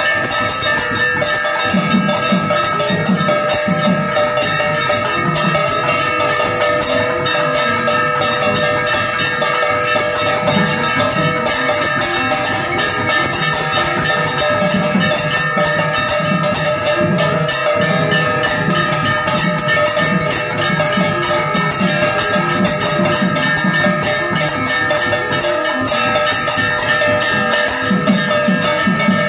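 Temple bells ringing continuously and clangorously during an aarti, with a low, uneven pulse beating underneath.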